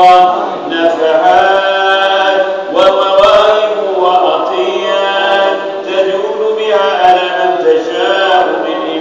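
Arabic supplication (doa) chanted by a man's voice in long, melodic, held notes.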